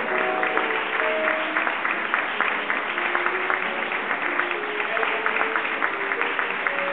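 Audience applauding steadily by hand, over background music of held, slow-moving notes.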